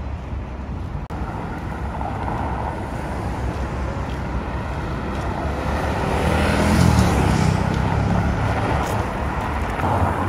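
Road traffic: cars driving past on a busy city street. The noise swells from about six to eight seconds in as an engine passes close by.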